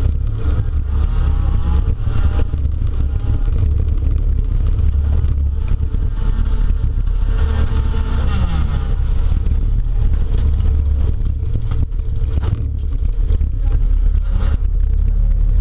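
Heard from inside a demolition derby car: its engine runs loud with a heavy low rumble and rises and falls in pitch as it revs. Knocks and rattles from the car body come through at intervals.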